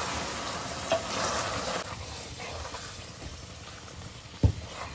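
Caramelized sugar syrup sizzling and bubbling in a pot as freshly added water is stirred in with a wooden spoon, the hiss dying down over the first two seconds. A sharp knock near the end is the loudest sound.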